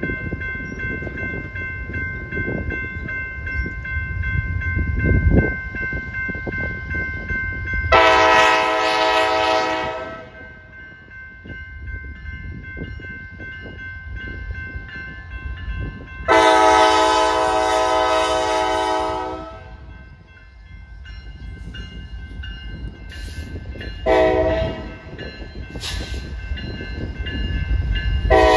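Norfolk Southern diesel locomotives rumbling past with a steady high whine, then the lead unit's multi-chime air horn sounding long, long, short and the start of another long blast: the standard grade-crossing warning signal.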